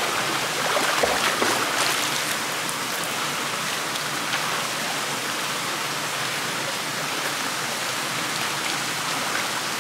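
Steady hiss of moving, splashing swimming-pool water, a little louder between about one and two and a half seconds in.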